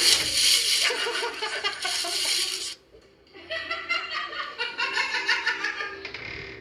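A person laughing in two bouts, the second a run of quick pulsing laughs after a short pause about three seconds in.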